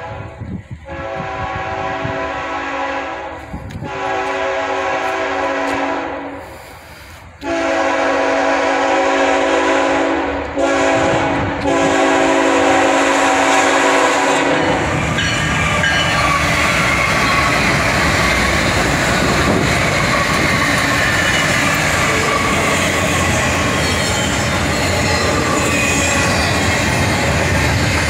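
A Norfolk Southern freight train led by a GE ET44AC locomotive sounds its air horn as it approaches, in several long blasts and one short one. About halfway through the horn stops and the locomotives pass close by. Then the double-stack intermodal cars roll past with a steady rumble of wheels on rail and some wheel squeal.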